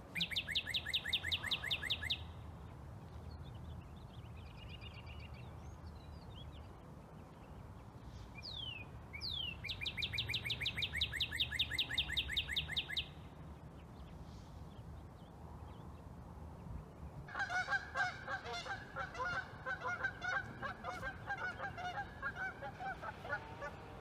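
A small bird gives a rapid, evenly pulsed high trill twice, about two and three seconds long, with a few thin rising chirps between. From about two-thirds of the way in, geese honk over and over. A low steady rumble runs underneath.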